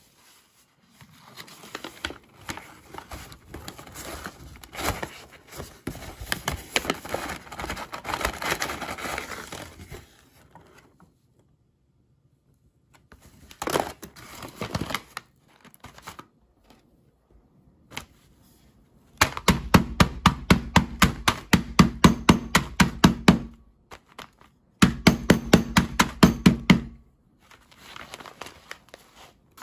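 Paper bag of candied sweet-potato sticks crinkling and rustling as it is handled, for about ten seconds. In the second half come two runs of rapid knocking, about five a second, as the sticks are crushed inside a folded cloth.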